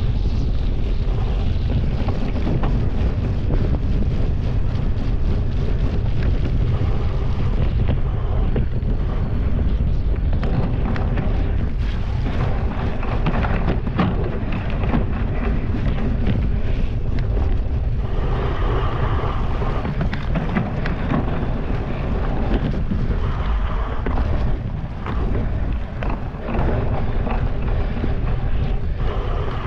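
Wind buffeting a GoPro's microphone on a cyclocross bike at race speed: a loud, steady low rumble, broken by frequent sharp clicks and knocks as the bike rattles over rough ground.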